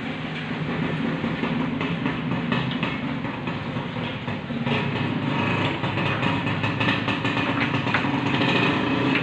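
Steady hum of a motor-driven machine running, louder from about halfway in, with a few light metal clicks.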